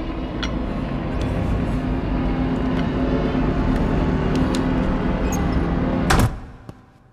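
Deep, steady drone with a few held low tones and scattered faint clicks, from a film's soundtrack. About six seconds in, a loud sharp burst ends it and the sound drops away quickly.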